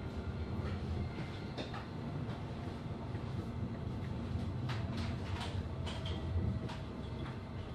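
Passenger train heard from inside the carriage while moving: a steady low rumble of the running gear, with scattered sharp clicks and knocks from the wheels on the rails.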